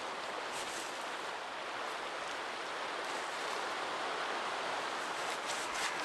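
Tent fabric rustling in a few brief bursts as it is folded and rolled up for packing, about a second in and again near the end, over a steady outdoor hiss.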